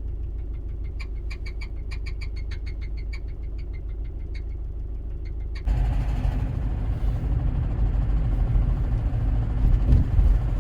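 A car's low steady rumble with a rapid ticking, about four ticks a second, over the first few seconds; a little past halfway it suddenly changes to a louder rumbling noise. This is the strange new noise that the long-used car has begun to make.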